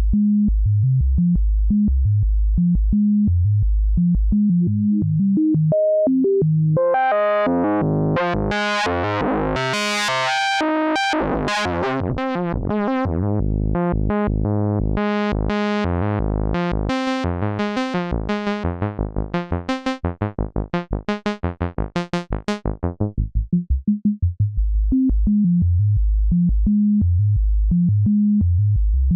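K-ACCUMULATOR synthesizer module playing a melody of short notes in its FBPM mode. The notes start low and dark, turn bright and harsh from about six seconds in, pulse rapidly in loudness for several seconds past the middle, then settle back to low, dark notes near the end.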